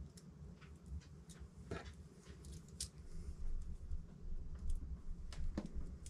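Faint clicks and handling noises from working a wire into the screw terminal of a NMEA 2000 field connector, over a low steady hum. The clearest clicks come about two seconds in and near the end.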